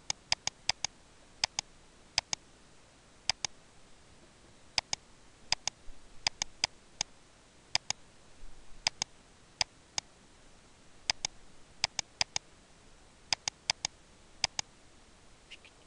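Sharp clicks of a computer mouse and keyboard, mostly in quick pairs and short runs of three or four, with gaps of about a second between them.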